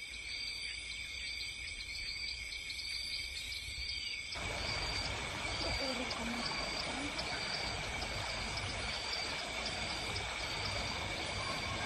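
Outdoor ambience of steady high-pitched insect drone, with a short chirp repeating at an even pace, over a low background rumble that gets louder about four seconds in.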